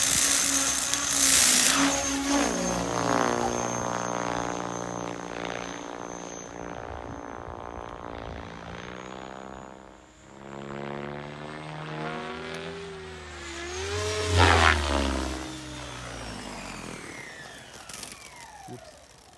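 Electric Mikado LOGO 480 XXtreme RC helicopter winding down: the motor whine and rotor-blade hum fall slowly and steadily in pitch as the rotor loses speed after power is cut, with a brief louder swell about three-quarters of the way through, then fading out.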